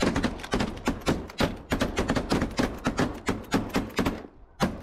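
Shotgun volley from several hunters firing at once at a flock of snow geese: a rapid, overlapping string of shots that thins out about four seconds in, with one more lone shot near the end.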